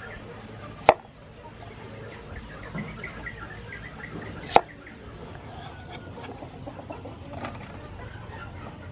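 A knife chopping through carrot onto a thick round wooden chopping block: two sharp chops, about a second in and again about halfway through. Chickens cluck in the background.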